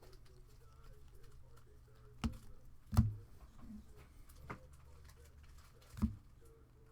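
A few sharp taps and knocks of cards and card holders being handled on a table, four in all with the loudest about three seconds in, over a low steady hum.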